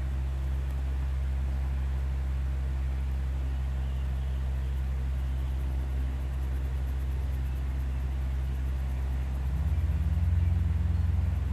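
A steady low hum, which gets louder about ten seconds in, under faint colored pencil shading on paper.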